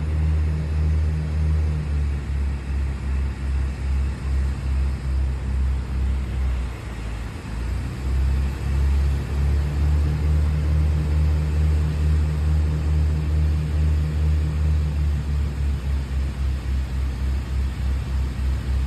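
Propeller aircraft engine droning steadily, heard from inside the cabin, with a regular throbbing beat in the drone.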